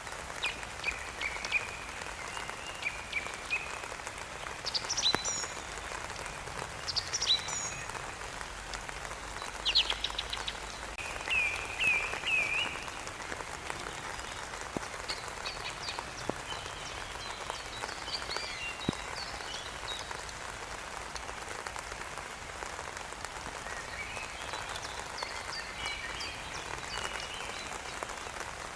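Steady rain falling, with birds singing over it: short repeated chirps and trills, busiest in the first half and again near the end.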